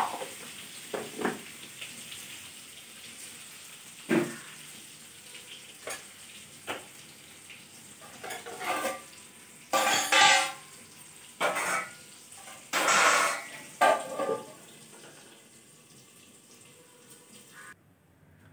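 Whole potatoes frying in oil in a wok, a faint sizzle that slowly fades, with a spatula knocking against the pan now and then. A run of louder scraping and clattering strokes comes a little past the middle.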